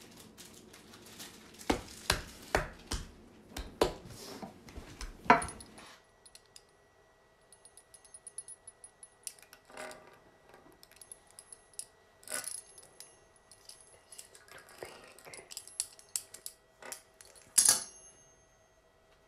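Scattered clicks, taps and clinks of kitchen work at a stone countertop, where rolled dough is being cut into strips with a pastry wheel. The taps are thickest in the first few seconds, then sparser over a faint steady hum, with single louder knocks about five seconds in and near the end.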